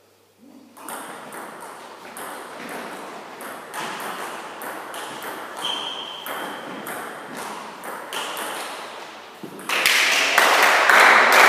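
Table tennis rally: the ball clicking in quick succession off the paddles and the table for about nine seconds, with a brief high squeak midway. A louder burst of noise takes over near the end, once the rally has stopped.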